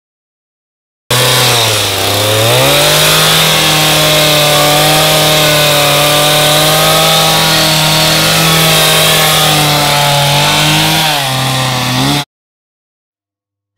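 Chainsaw engine running at high revs. It cuts in suddenly about a second in, drops in pitch and climbs back, holds steady, sags briefly near the end, then cuts off abruptly.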